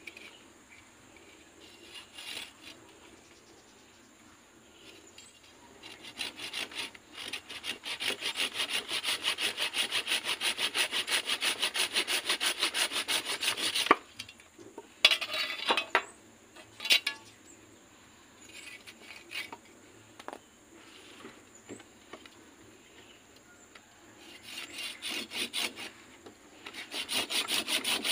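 Curved hand pruning saw cutting through the woody stem of an anting putri (Wrightia religiosa) plant in quick, even strokes. The sawing stops abruptly about halfway through, followed by a few sharp knocks. It then starts again and settles into a steady rhythm near the end.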